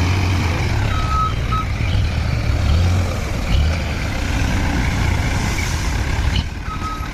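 Truck engine running with a steady low rumble, with short reversing beeps about a second in and again near the end.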